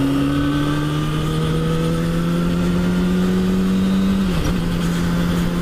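2007 Kawasaki ZX-6R's inline-four engine running under way at a steady throttle, its note slowly rising in pitch. About four seconds in the note dips briefly and comes back a little lower.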